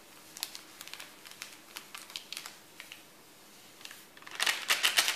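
Thin plastic sachet of gelatin powder crinkling and ticking as it is squeezed and shaken out over a plastic tub. It gives faint scattered ticks at first, then a quick run of sharp crackles about four seconds in.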